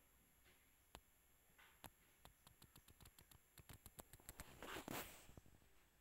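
Very faint small clicks, a couple at first and then a run of about three or four a second, followed by a brief rustle near the end: light handling or tapping noise.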